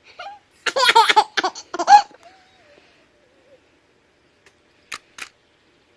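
A child making silly high-pitched vocal noises: a loud run of squeals and warbles lasting about a second and a half, trailing off into a faint wavering hum. Two sharp clicks come near the end.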